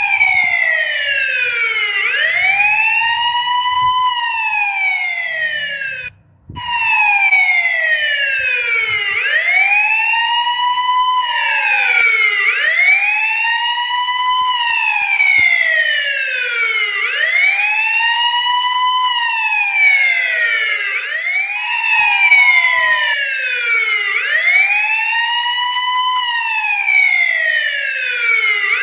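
Police siren wailing, its pitch rising and falling in slow sweeps of about four seconds each, with two sweeps overlapping here and there. It cuts out for a moment about six seconds in.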